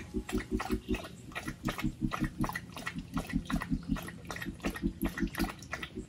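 Background music: a repeating figure of quick low pulses, about five a second in short runs with brief gaps between, over light clicking percussion.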